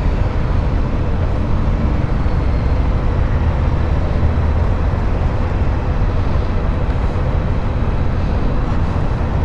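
Motorcycle running with a steady low rumble.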